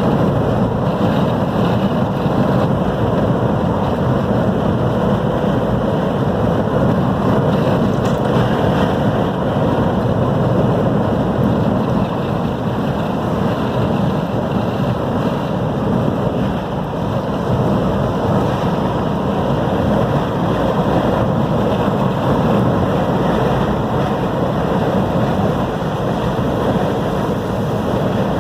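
Strong coastal wind buffeting the microphone over ocean surf, a steady, unbroken noise.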